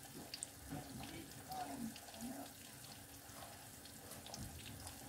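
Wooden spoon stirring scrambled eggs in a stainless steel saucepan: faint wet scraping with scattered soft clicks.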